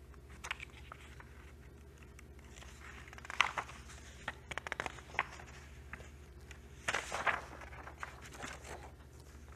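Faint handling and rustling of paper sheets, with scattered soft clicks and taps over a steady low room hum.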